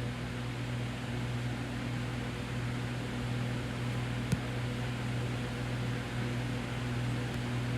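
Steady low hum over a soft hiss, with one short click a little past four seconds in.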